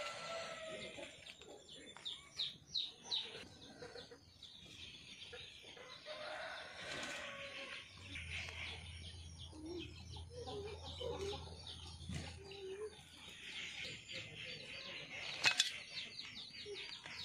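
Chickens clucking, with small birds chirping quickly and high over them. A sharp click sounds once near the end.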